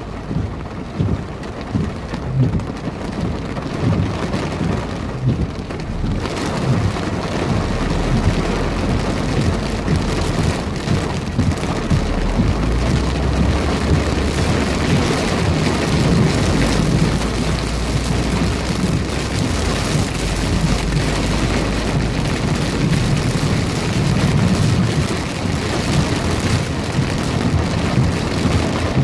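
Heavy thunderstorm downpour, the rain pouring hard and growing heavier about six seconds in, with a low rumble underneath.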